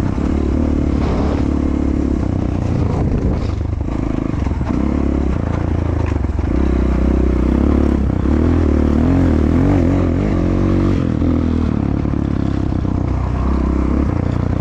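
Enduro dirt bike engine running under way, its revs rising and falling as the bike is ridden.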